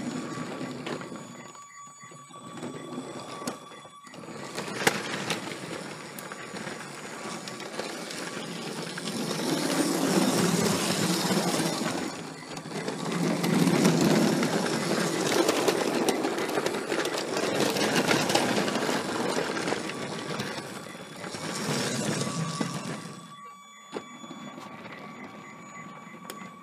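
LEGO Passenger Train 7938 running on plastic track, heard from a camera car riding on the train: the Power Functions train motor and the wheels on the track make a steady rumbling clatter that swells and fades, loudest in the middle stretch, with a thin steady whine running through it.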